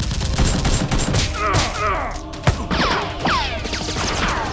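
Rapid gunfire sound effects: a dense volley of shots, with several falling whistles cutting through, and one sharp, louder thump about two and a half seconds in.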